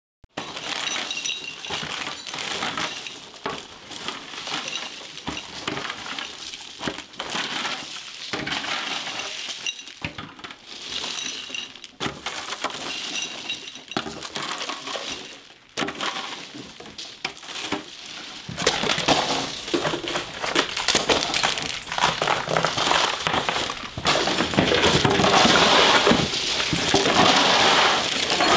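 Many small metal gas cartridges clinking and clattering as they are swept and pushed across a wooden floor with long-handled tools. The clatter grows louder and denser about two-thirds of the way through.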